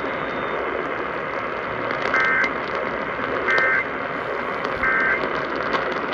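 Emergency Alert System end-of-message data code: three short two-tone warbling bursts about a second and a half apart, over steady radio static, marking the end of the flash flood warning broadcast.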